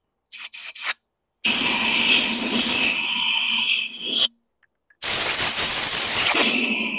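Compressed-air blow gun blasting into a lawn mower's gas tank: two long hissing blasts of about three seconds each, the first starting about a second and a half in and the second after a short break. A few short clicks come before the first blast.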